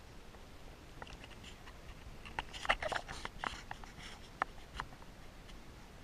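Scattered light clicks and knocks of handling close to the microphone, thickest about halfway through, with a brief squeaky sound among them.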